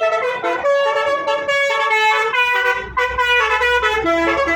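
Multi-tone 'telolet' bus horn playing a quick melody, the notes changing several times a second. A low rumble comes in about halfway through.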